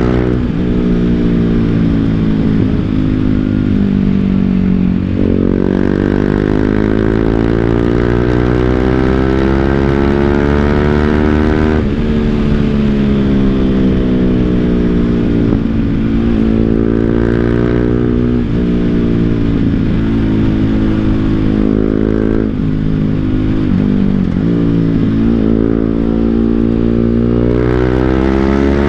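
BMW G 310 GS single-cylinder engine through an Akrapovic full-system exhaust, ridden on the road. The engine note sinks slowly as it slows. It then climbs through the revs and drops sharply several times, as it shifts gear or rolls off.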